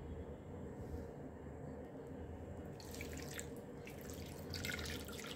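Water poured from a glass onto a pile of slate pencils on a plate, starting about three seconds in: splashing and trickling with small spattering drips.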